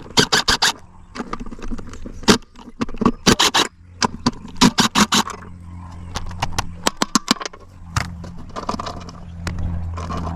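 Bursts of rapid metallic clicks and clatter from hand tools working on a commercial floor scrubber's metal parts. From about eight seconds in a steady low hum joins.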